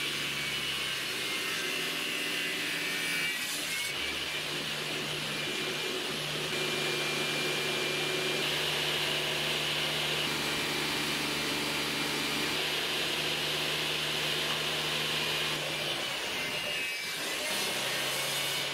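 Table saw with a rip blade running steadily, taking light passes of about half a millimetre off the edge of an ash blank to true it, in place of a thickness planer.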